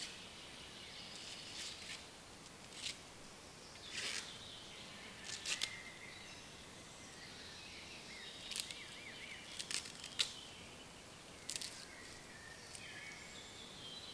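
Husks being torn off an ear of corn by hand in a series of short sharp rips, with birds singing in the background.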